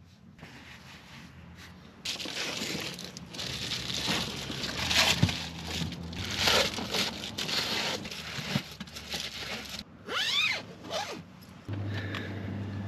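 Crinkling and rustling of foil-faced reflective insulation window covers and bedding being pulled down and handled, loud and irregular after a quiet first two seconds, with a few quick zipper-like sweeps about ten seconds in. A low steady hum comes in near the end.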